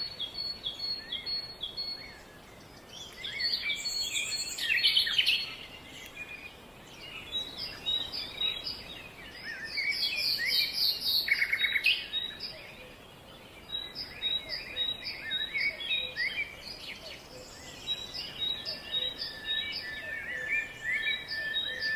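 Several birds chirping and calling at once, a busy mix of short chirps and trills. A row of short, evenly repeated high notes runs through the middle and end, and a steady high whistle-like tone comes in near the end.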